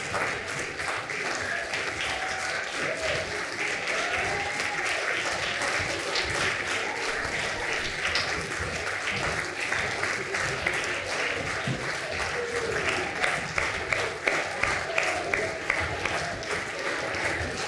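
Audience applauding steadily, a dense patter of many hands clapping, with a few voices calling out among the clapping.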